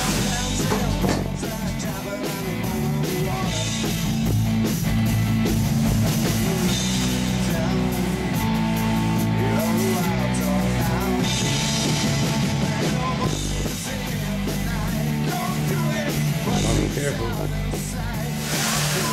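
Background rock music with drums, guitar and singing.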